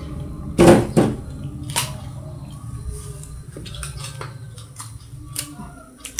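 Two dull thumps about half a second apart near the start, followed by a sharper click and then scattered light clicks over a steady low rumble.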